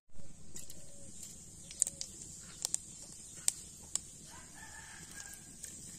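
Whole spice seeds sizzling in hot oil in an iron kadai, with a steady hiss and scattered sharp pops. A rooster crows once, about four seconds in.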